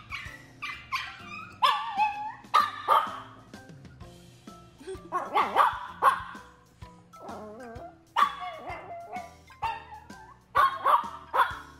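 A Chihuahua puppy barking in short, high yips, in about five clusters, some sliding in pitch like whines. These are frustrated demand barks at a toy it cannot reach.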